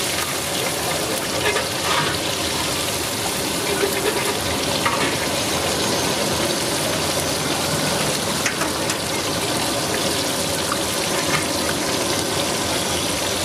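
Chicken pieces deep-frying in hot oil in a large iron kadai: a steady sizzle with small pops scattered through it, the oil stirred with a perforated ladle.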